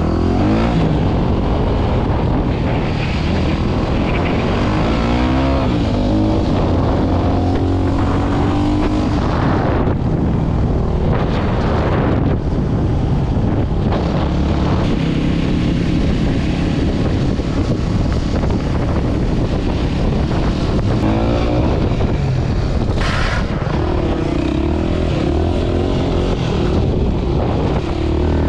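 Yamaha WR250R's single-cylinder four-stroke engine under way, its revs rising and falling several times as the rider works the throttle, over heavy wind rush on the helmet camera.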